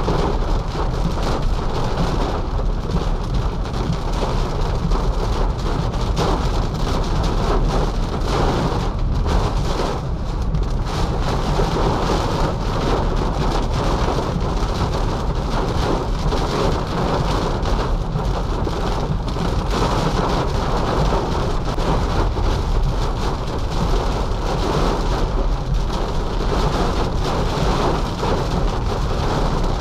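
Heavy rain drumming steadily on a Nissan Leaf electric car as it is driven through a storm, with a constant low rumble underneath.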